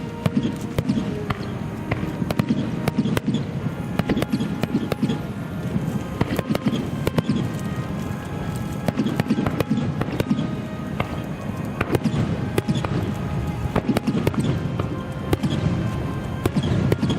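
Fireworks display: shells bursting in quick succession, a dense run of bangs and cracks over a steady low rumble, with music playing alongside.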